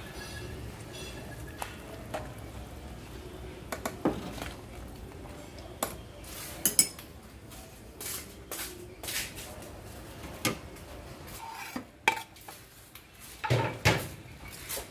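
Cutlery and dishes clinking and knocking together at an irregular pace, with a denser run of knocks near the end.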